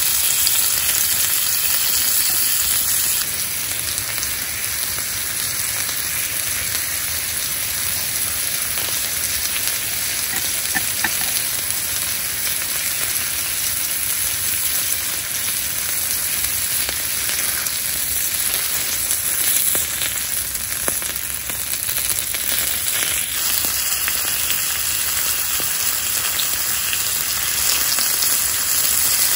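Slabs of meat sizzling steadily on a ridged grill plate over a portable gas stove.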